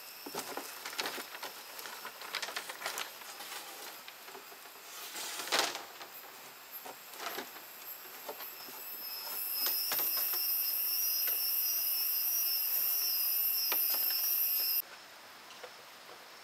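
Scattered clicks and knocks with one louder clatter about five seconds in, then a steady high-pitched insect buzzing drone for about five seconds that cuts off suddenly near the end.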